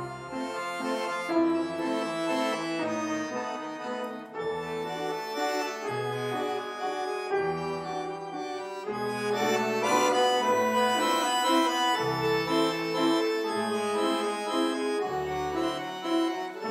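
Button accordion and Bechstein grand piano playing together: sustained accordion chords over recurring low bass notes, growing louder about halfway through.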